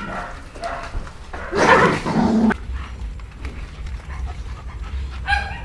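Dogs being fed pork bones. One dog gives a brief rough growl about one and a half seconds in, the loudest sound here, and a short high-pitched whine follows near the end.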